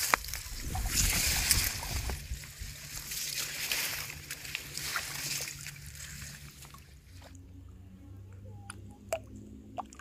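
Water splashing and sloshing at a weedy pond edge, loudest and most uneven in the first half, then dying down to a quiet stretch with a few faint ticks and drips.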